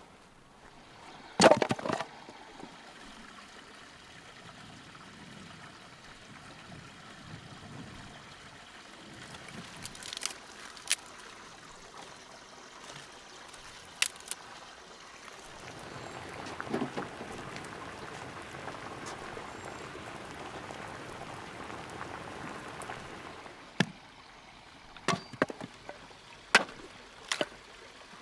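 Water pouring and trickling for several seconds, with a loud clatter a second or two in and a few sharp knocks near the end.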